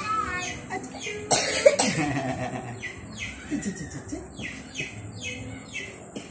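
A person coughs once, loudly, about a second and a half in, over a steady run of short falling bird chirps, two or three a second.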